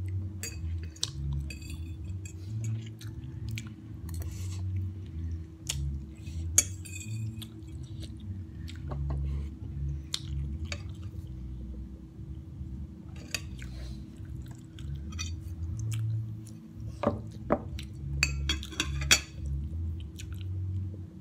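Close-miked eating sounds: spicy instant noodles slurped and chewed, with a metal fork clinking and scraping on a ceramic plate in short sharp clicks, a few louder clinks near the end.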